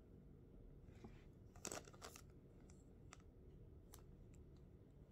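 Near silence: room tone with a few faint, short rustles and clicks from hands handling a small object, about two seconds in and again near four seconds.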